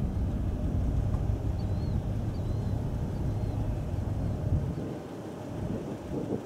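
Low rumble of a jet airliner's engines, steady, then dropping away about five seconds in.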